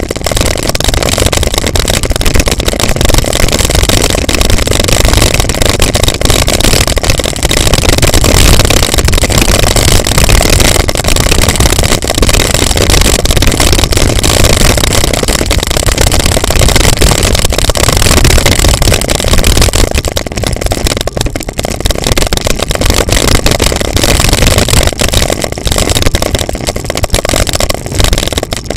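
Continuous loud rumble and rush of a bicycle coasting downhill on a rough gravel and dirt road, heard on the rider's action camera: tyre noise and frame rattle mixed with heavy wind buffeting on the microphone.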